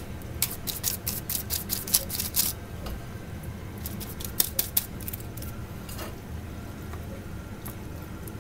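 Silicone pastry brush basting sauce onto baked chicken wings: a quick run of wet dabbing clicks for the first two and a half seconds, a few more strokes around four and a half seconds, then only faint handling.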